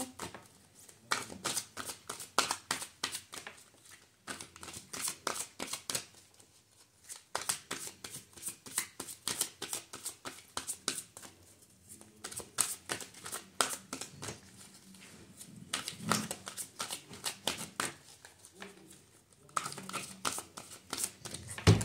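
A deck of oracle cards being shuffled by hand: a long run of quick, irregular card clicks, broken by several short pauses.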